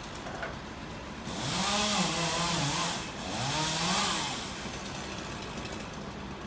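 Two-stroke chainsaw revved in two bursts, each rising in pitch and then falling back, over a steady low engine hum.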